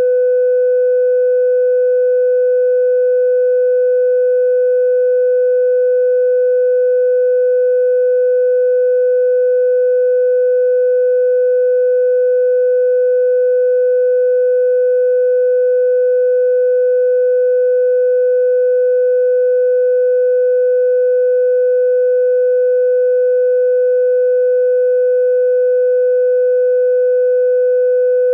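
Steady electronic test tone at about 500 Hz, held at one unchanging pitch, with faint higher overtones: the mid-frequency stage of a phone speaker diagnostic test.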